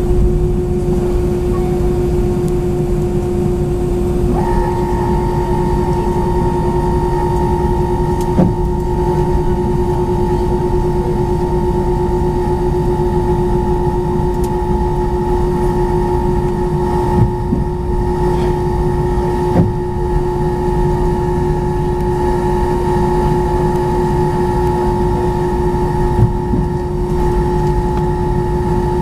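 Airbus A319's IAE V2500 engines at taxi power heard inside the cabin: a steady rumble with a constant whine, joined by a second, higher whine about four seconds in. A few light thumps come through as the jet rolls along the taxiway.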